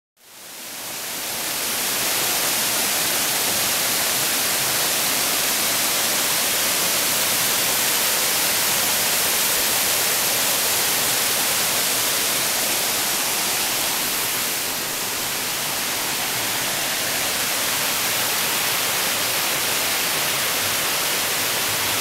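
Waterfall rushing steadily over rock in a loud, even hiss, fading in over the first two seconds.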